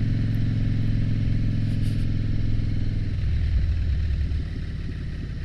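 2007 Harley-Davidson Dyna Street Bob's Twin Cam V-twin engine running under way through short-shot aftermarket exhaust pipes. About three seconds in, the engine note drops lower and grows quieter.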